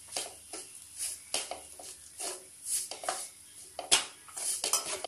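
Flat steel spatula scraping and tapping against a kadai while stirring a dry crumb mixture, in quick irregular strokes, with a sharper clack about four seconds in.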